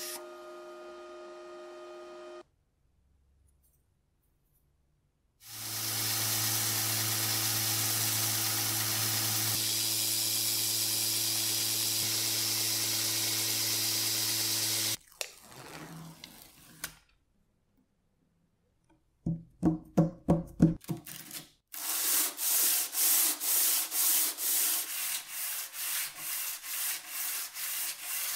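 Belt grinder running steadily for about nine seconds while the steel slicer blade is ground on it, after a short welding-torch sound at the start. Then comes a quick run of knocks, and then the blade is hand-sanded back and forth on sandpaper on the bench, about two strokes a second.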